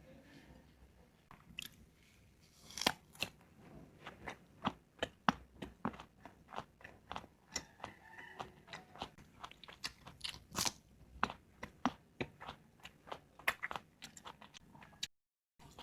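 Close-up chewing and biting of crunchy mango slices dipped in bagoong: a quick run of sharp crunches, several a second, with a few louder bites among them. The sound cuts out briefly near the end.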